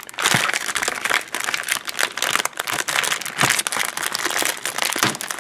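Thin plastic wrapper of an Oreo cookie package crinkling and crackling as its resealable film lid is peeled back and handled by hand.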